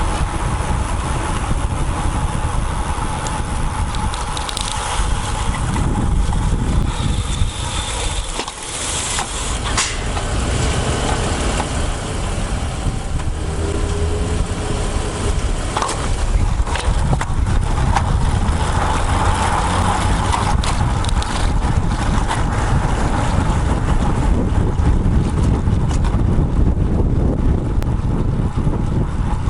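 Wind rushing over a bike-mounted action camera's microphone while riding, mixed with the steady rumble of road traffic. There is a brief lull about eight seconds in.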